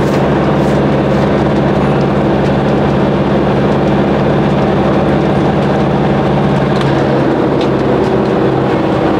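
Steady engine drone and road noise of a motorhome being driven, heard from inside the cab, with a constant low engine hum and no change in pace.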